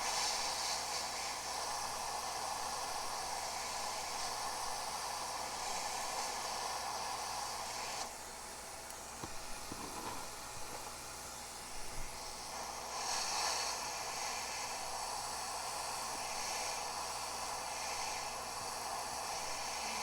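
Gaoyue 850 hot air rework station blowing a steady hiss of hot air from its nozzle while reflowing solder to reattach a RAM chip. The hiss drops back for about five seconds near the middle, then returns.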